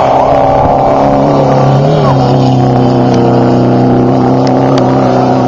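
Air-cooled flat-four engine of a Class 11 stock Volkswagen Beetle race car running hard. Its pitch rises briefly about two seconds in and then holds steady.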